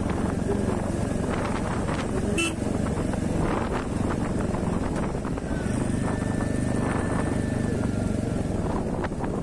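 Motorcycle engine running steadily as the bike rides along a road, with one short sharp click about two and a half seconds in.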